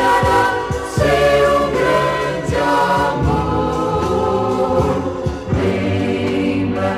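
Choir singing a Christian hymn in Portuguese with instrumental accompaniment, from a 1970s vinyl record.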